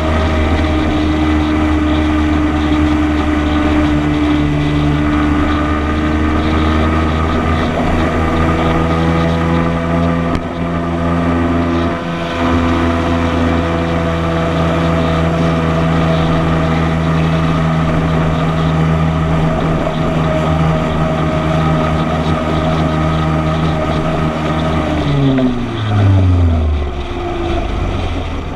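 Motorcycle engine running steadily at cruising speed, with wind rushing past. Near the end the engine note falls as the bike slows.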